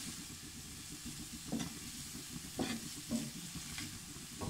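Chopped carrot and green capsicum sizzling in hot oil in a black frying pan on high heat, stirred with a wooden spatula. The spatula scrapes across the pan in a few separate strokes over the steady sizzle.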